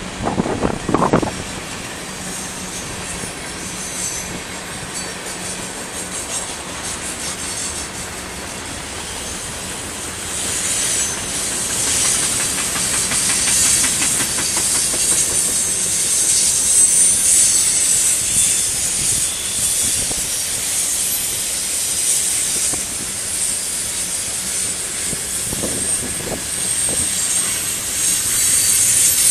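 Union Pacific manifest freight cars rolling past on a curve: a steady rumble and clatter of steel wheels over the rail joints. From about ten seconds in, a high squeal of wheel flanges grinding against the curved rail joins in and grows louder.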